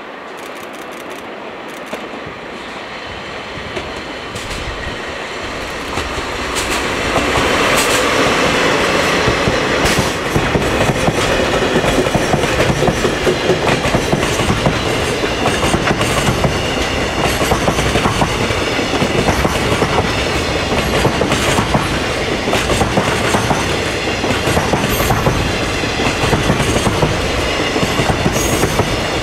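JR Freight DD51 diesel-hydraulic locomotive approaching and passing, growing louder over the first seven seconds. A long freight train of container wagons then rolls by with a steady clickety-clack of wheels over the rail joints.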